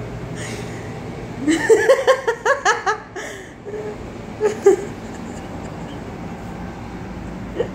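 A person laughing: a run of quick laughs about a second and a half in, then a short laugh a few seconds later.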